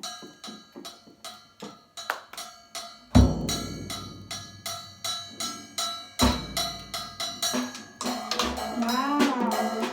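A child playing a drum kit: steady strokes about three a second with ringing cymbals, and two heavier hits with a deep bass-drum boom about three and six seconds in.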